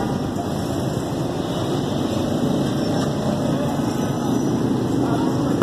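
Steady, even background noise with no distinct events.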